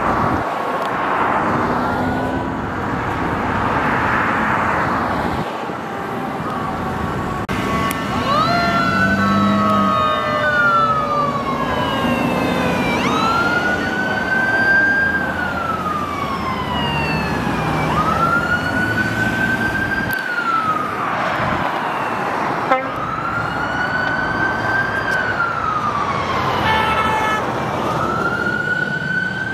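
Sirens of a fire engine and an ambulance responding Code 3 on a freeway: a wail siren sweeping up and slowly down about every five seconds, with a second siren's faster, higher sweeps over it and a brief run of quick yelps near the end. Steady freeway traffic noise underneath, with the sirens coming in about seven seconds in.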